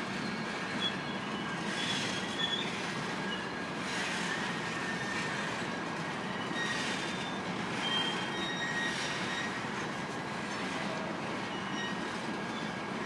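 BNSF freight train of covered hopper cars rolling past at a steady pace: a continuous rumble of steel wheels on rail, with brief high-pitched wheel squeals scattered throughout.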